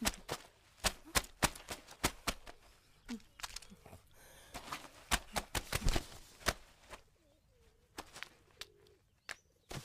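Clothes being hand-washed on a stone slab: a quick, irregular run of wet slaps and scrubbing sounds from soapy cloth, thinning out about seven seconds in.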